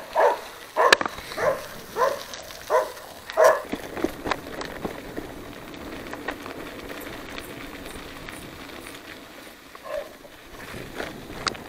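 Dogs barking repeatedly, about eight barks over the first four seconds, then a steady background noise with one more bark near the end.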